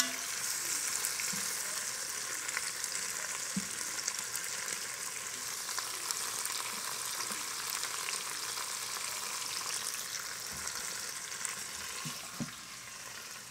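Oxtails sizzling steadily as they brown in hot oil, with a few light clicks of metal tongs against the pot as the pieces are turned.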